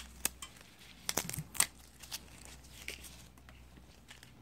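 Handling of a Makita lithium-ion battery's cell pack and plastic parts: scattered sharp clicks and crinkles, bunched together about a second in.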